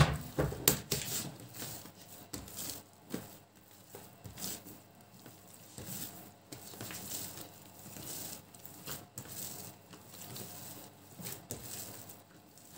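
Hands patting, folding and pressing a large ball of soft yeast dough on a counter: soft, irregular pats and squishes, the sharpest just at the start.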